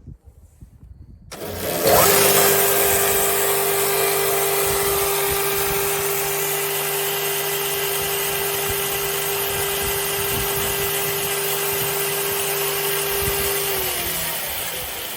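Prinz ecoSTAR stationary chain saw with a 7.5 kW motor starting up abruptly about a second in and running steadily, a constant whine over a broad rushing noise. The whine dips slightly in pitch near the end as the level begins to fall.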